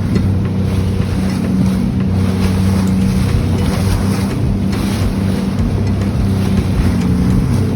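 Sea-Doo FishPro jet ski running steadily at cruising speed: an even engine drone with the rush of water and wind noise on the microphone.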